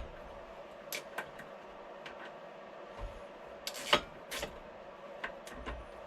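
Scattered light clicks and knocks of bolts and hand tools being handled against the metal motor and gearbox housing, with one sharper knock about four seconds in.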